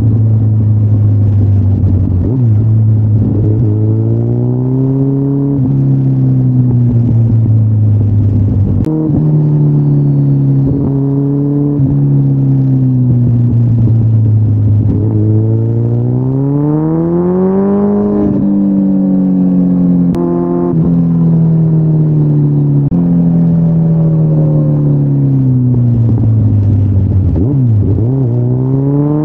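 2013 Kawasaki Ninja ZX-14R's inline-four engine running through Yoshimura mufflers while riding, its pitch rising and falling with the throttle. The revs climb steadily about halfway through, peak and fall away slowly, then dip and climb sharply again near the end.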